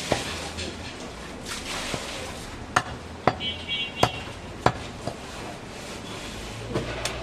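Large cleaver chopping goat meat on a wooden log chopping block: about six sharp chops at uneven intervals.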